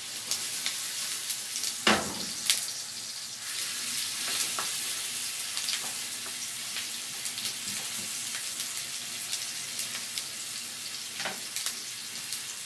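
Pork belly slices frying in butter in a non-stick pan, a steady sizzle. A few clicks of a ladle against the pan as the meat is moved, the loudest about two seconds in.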